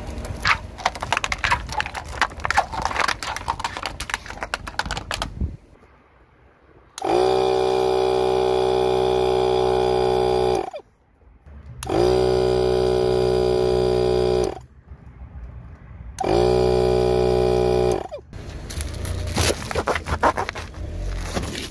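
Portable tyre-inflator air compressor running in three bursts of a few seconds each, a steady hum, pumping up rubber play balls. Before it, crackling and crunching as a car tyre crushes plastic cups. Near the end there is more crackling as the tyre rolls onto a ball.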